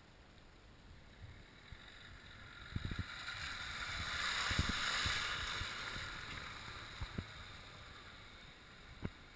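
Suzuki Jimny 4x4 driving through a muddy puddle: engine and tyre noise with a splash of mud and water that swells to its loudest about halfway, then fades as the vehicle drives off, with a few short knocks along the way.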